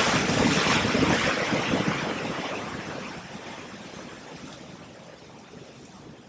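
Ocean surf: a wave breaking and its whitewater rushing, a hiss of noise that swells in at the start, stays loud for about two seconds, then slowly fades.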